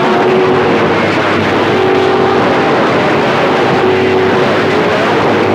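CB radio receiver audio: loud, steady static with a couple of steady whistle tones from carriers on the channel and faint garbled sideband signals under the noise.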